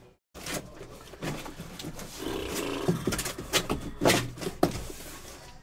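Cardboard boxes being handled on a table: a series of knocks and taps, with a rough rasping sound a little after two seconds in.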